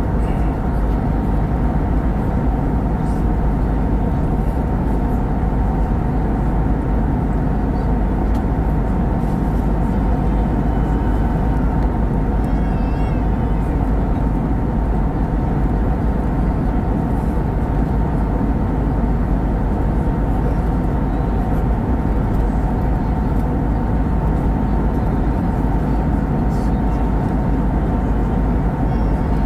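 Steady in-flight cabin noise of an Airbus A320neo, heard from a window seat beside the engine: an even rush of engine and airflow noise with a steady tone running through it.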